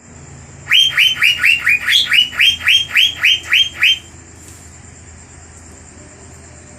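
Asian fairy-bluebird (cucak biru) singing a fast run of loud, falling whistled notes, about four a second, which stops about four seconds in, leaving only a faint steady background hiss.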